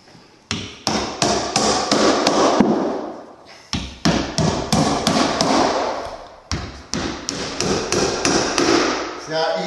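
Hammer driving nails through a sheet of drywall into wooden studs: runs of quick blows, with two short pauses, about a third and two-thirds of the way in.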